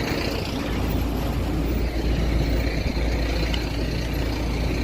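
Steady vehicle noise with a heavy low rumble and an even rushing haze over it.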